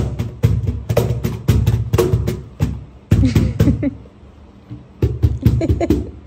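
Meinl cajón played by hand: a quick rhythm of deep bass strokes and sharp slaps that breaks off about four seconds in and picks up again a second later.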